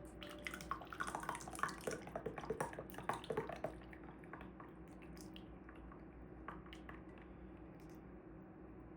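Thick hot chocolate being handled in a mug or cup: a quick run of small wet drips and clicks that thins out after about four seconds, with a few scattered ticks later over a faint steady hum.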